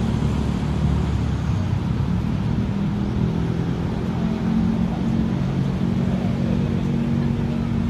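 Steady low engine hum, like a motor vehicle running nearby, holding an even pitch over a background of outdoor noise.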